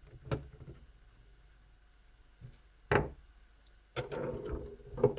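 A few sharp clicks and taps of a screwdriver and small laptop parts being handled during disassembly, the loudest about three seconds in, then a cluster of quieter clicks and rustling near the end.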